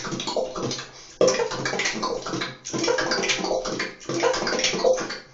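Fast beatboxing: quick strings of mouth-made drum sounds, plosive 'p' kicks alternating with crisp 'tk' hi-hats, each run lasting about a second, with short breaks between them.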